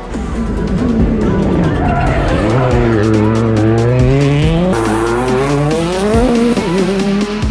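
A Hyundai i20 Coupe WRC rally car's turbocharged four-cylinder engine revving hard at speed, its pitch dipping and climbing through gear changes, with music playing underneath.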